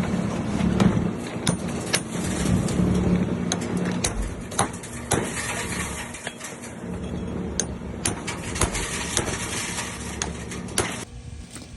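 Truck engine running steadily, heard from inside the cab, with scattered knocks and clicks of movement; the steady noise drops away near the end.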